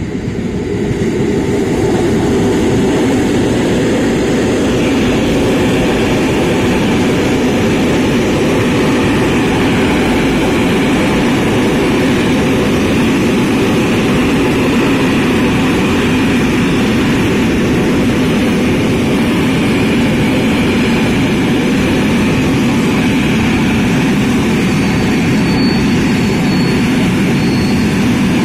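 Freight train of tank wagons rolling past at close range behind a Škoda class 181 electric locomotive: a loud, steady rumble of wheels on rail that builds over the first two seconds as the train arrives, then holds level. Near the end a faint high whine comes and goes.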